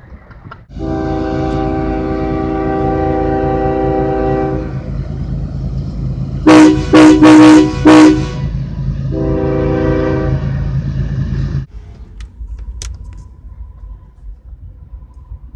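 Nathan Airchime K3HA train horn fitted to a car, sounding a long chord of several tones, then a quick run of four short, very loud blasts, then another chord. It cuts off suddenly about twelve seconds in.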